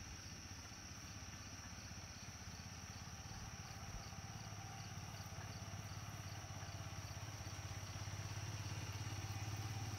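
Steady high-pitched drone of insects in the hillside trees, over a low steady hum that grows gradually louder toward the end.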